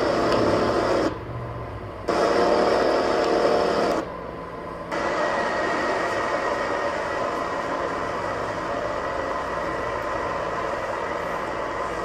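Motorcycle engines on the soundtrack of a Harley-Davidson promotional video, played through a conference room's speakers. There are two loud bursts in the first four seconds, each cutting off sharply, then steady running from about five seconds in.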